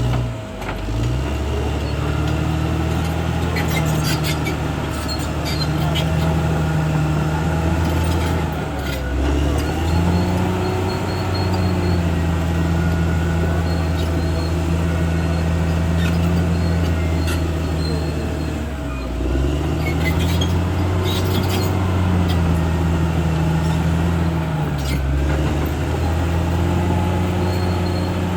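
Caterpillar D6R XL bulldozer's diesel engine running hard, its pitch sagging under load and recovering several times, about four times in all. Short metallic clanks come through now and then.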